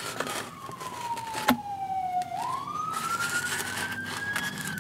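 A siren wailing: its pitch falls slowly for about two seconds, swings back up and climbs slowly, then starts to fall again near the end. A sharp click about one and a half seconds in, with light rustling.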